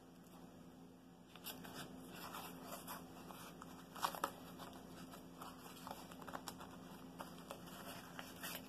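Blue painter's tape being folded over and pressed down by hand around the edges of two stacked wooden boards: faint rustling and crinkling with scattered light taps, a little louder about four seconds in.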